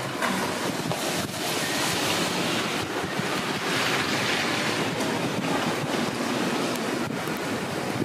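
Snowstorm wind blowing hard, a steady rushing that swells around the middle, with wind buffeting the microphone.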